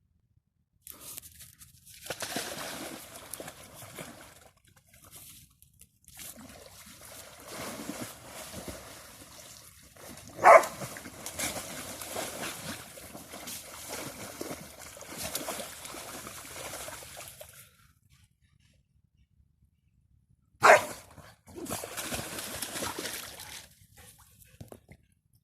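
A dog sneezing twice, sharply and loudly, about ten seconds apart, amid sloshing and splashing water as it moves about in the shallows.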